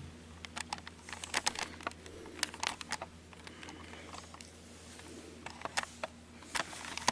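Light, irregular clicks and taps of hard plastic being handled: the opened underside of a laptop and its parts, over a faint steady low hum.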